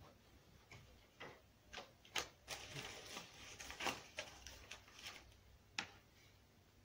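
Faint scattered clicks and rustles of wiring and fittings being handled, with one sharper click near the end.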